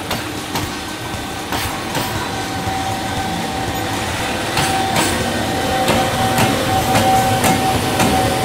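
JR Freight EF210 electric locomotive hauling container wagons slowly through a freight yard during shunting. Its wheels clack over the rail joints, with a steady high whine that starts about two seconds in. It grows louder as the locomotive draws near, and the clacks come more often in the second half.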